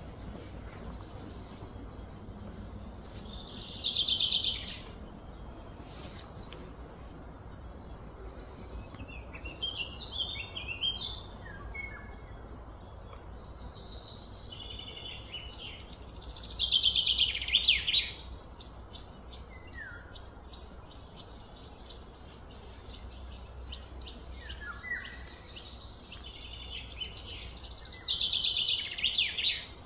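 Birds singing: three loud trilled phrases, each a second or two long and about twelve seconds apart, with short falling chirps between, over a steady low background hum.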